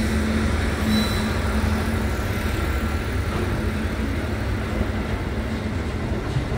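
Container freight train wagons rolling past close by at speed: a steady, even noise of steel wheels running on the rails. A low hum fades out in about the first second.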